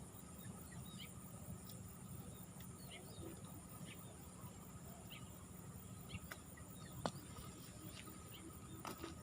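Faint riverside ambience: a steady low rumble with scattered short bird chirps and a steady high insect drone. A single sharp click about seven seconds in.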